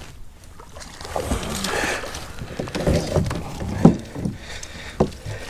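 Handling sounds in a plastic fishing kayak while a hooked bass is played and the landing net is grabbed: rustling and bumping of gear against the hull, with two sharp knocks near the end.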